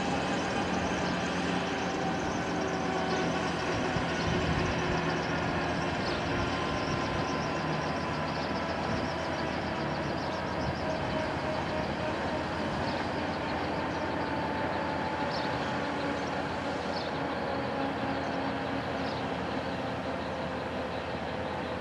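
Airbus AS365 N3 Dauphin helicopter's twin turbine engines and rotor winding down on the ground: a steady turbine whine and rotor hum whose tones slowly fall in pitch as the level gradually drops.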